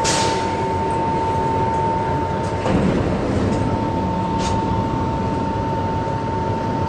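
Inside an R62A New York City subway car: a steady rumble with a continuous high whine, which breaks off briefly about three seconds in.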